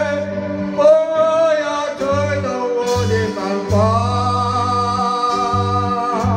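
Live band music: a lead melody of long, gliding held notes over low bass notes.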